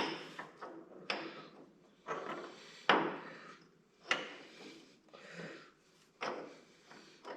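Metal drive shaft knocking and clunking in the 1963 Massey Ferguson 35's transmission housing as it is worked down and turned to line it up, about one knock a second.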